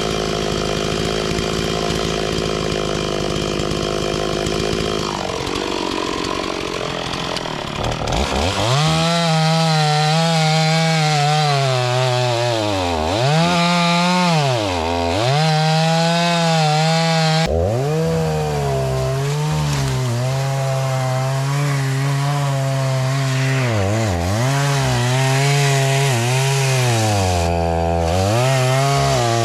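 Two-stroke chainsaw cutting blowdown timber. It runs steadily at first. About eight seconds in it goes to high revs, and its pitch then dips and recovers several times as the chain loads up in the wood.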